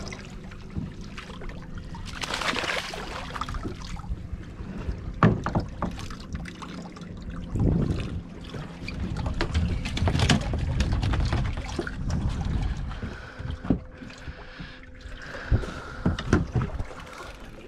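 Sea water slapping and splashing against a small boat's hull, with wind rumble on the microphone and scattered knocks and clicks from rods and gear on deck.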